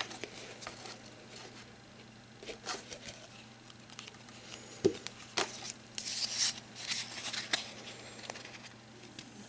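Hands handling paper and thin card on a tabletop: scattered light clicks, taps and rustling, with a sharper knock about five seconds in and a longer rustle of card a second later.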